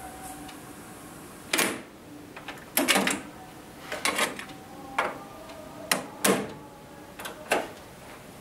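Sharp plastic clicks and clacks from a Technics M65 cassette deck being stopped, its cassette door opened and the tape taken out, then the cassette handled into its plastic case: about eight separate clicks, some in quick pairs, over a faint background hiss.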